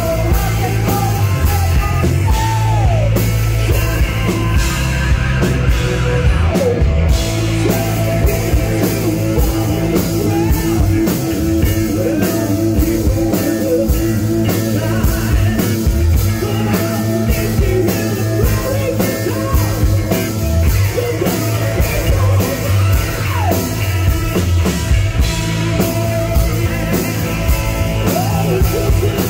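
Live rock band playing loud: electric guitar, bass guitar and drum kit, with a lead singer singing over them.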